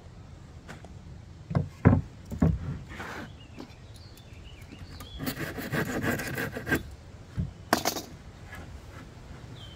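2x6 lumber boards being handled on a wooden shed floor: three sharp wooden knocks about a second and a half in, a scraping slide of wood on wood lasting about a second and a half from about five seconds in, then two more knocks near the end.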